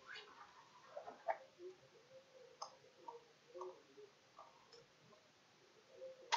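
Faint, irregular clicks and ticks over quiet room tone, with one sharper click near the end.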